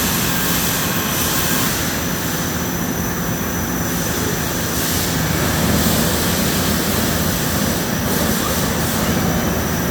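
CNC machines running in a robot-tended cell, giving a steady machine-shop noise with a low hum and a thin, steady high whine.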